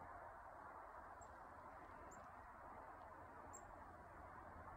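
Near silence with a steady faint hiss. A small bird gives three faint, very high single chirps, about a second apart.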